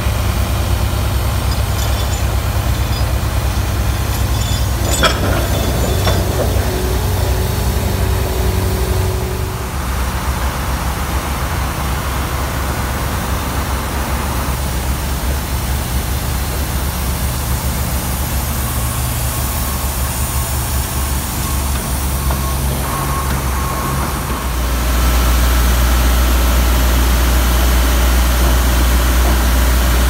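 Heavy diesel engines of a pile-driving crane and its Ingersoll Rand air compressor running with a steady low rumble, with a single metallic knock about five seconds in. The engine drone steps up louder and steadier for the last few seconds.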